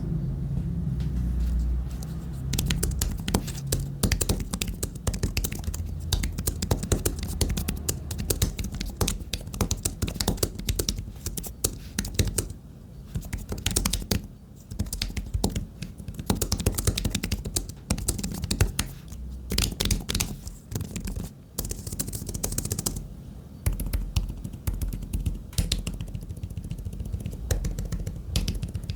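Typing on a Logitech Keys-To-Go 2 slim, low-travel wireless keyboard: a fast, continuous run of key clicks with brief pauses. The clicks are tactile rather than tinny.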